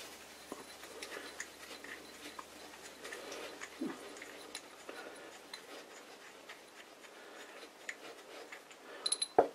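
Faint rubbing and small scattered clicks of fingers handling a brass oiler cup, with a few sharper clicks near the end.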